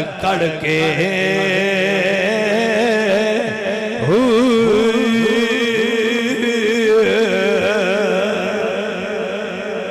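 A man's voice chanting a line of Sufi poetry in a long, melismatic held melody with wavering vibrato, over a steady drone.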